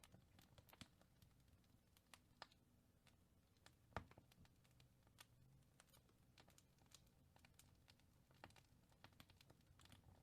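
Faint crackling of a wood fire in a fireplace: irregular small pops and snaps, with one louder pop about four seconds in, over a faint low rumble.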